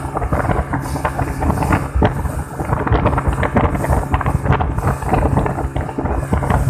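Yamaha 200 outboard motor running steadily at speed, a constant low drone, under heavy wind buffeting on the microphone and the rush of the boat's wake.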